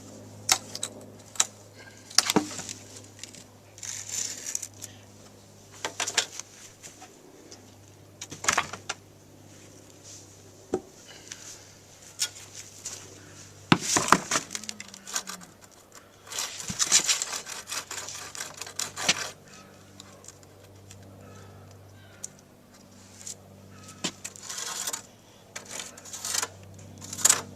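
Hand saw cutting through the last of a thick sycamore slab left uncut by a track saw, in short bouts of rasping strokes, with scattered knocks and clinks in between. A steady low hum runs underneath.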